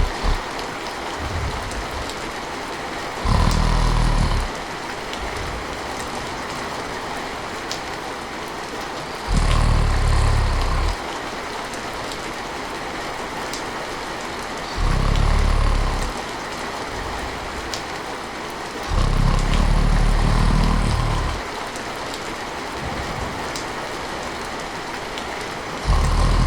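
A person snoring over steady rain: five low, rumbling snores about five seconds apart, each lasting one to two seconds, with the rain going on evenly between them.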